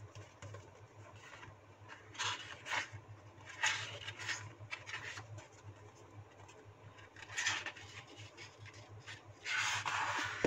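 Paperback book handled by hand and its pages turned: several short paper rustles, with a longer rustle near the end.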